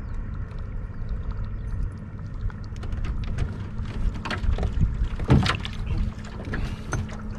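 Steady low rumble of wind and water around a small fishing boat, with a faint steady hum. From about three seconds in come scattered knocks and thumps of footsteps on the boat deck, the loudest about five seconds in.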